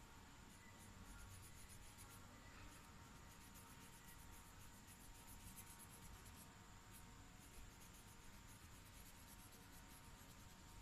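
Felt-tip marker tip scratching faintly on paper in short, repeated strokes as it colours in a drawing.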